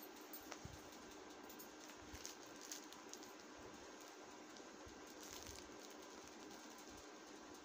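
Near silence: faint rustling and a few light ticks from cloth and a tape measure being handled, over a low steady hum.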